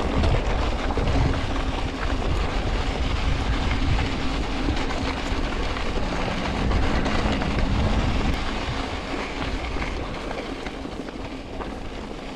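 Mountain bike rolling fast over a rough, rocky gravel trail: tyres crunching on loose stones and the bike rattling, over a steady low rumble. It grows quieter over the last few seconds.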